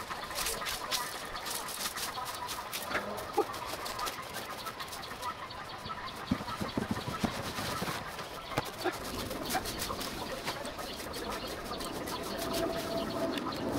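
A garden rake scratching through dry grass clippings in quick strokes for the first few seconds, then a few scattered knocks and rustling of grass. Birds call in the background.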